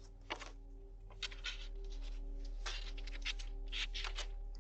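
Irregular sharp clicks and taps, sometimes several a second, picked up by a doorbell camera's microphone over its steady electrical hum.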